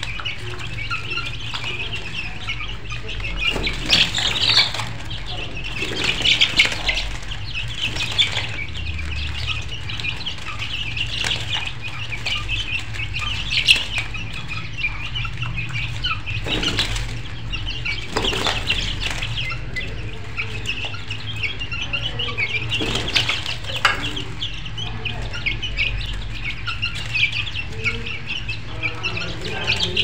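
A flock of chickens clucking and calling, with several short bursts of wing flapping.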